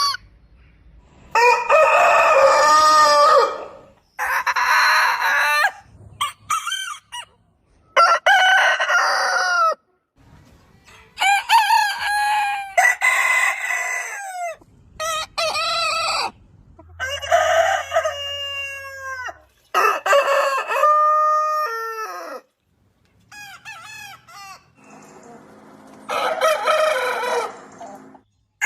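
Roosters crowing: a string of separate crows, each a second or two long, cut together one after another with sudden breaks between them.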